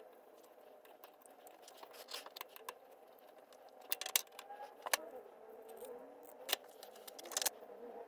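Light, irregular clicks and small scrapes of hand work on switch wiring, the sharpest clicks about four seconds in and again shortly before the end.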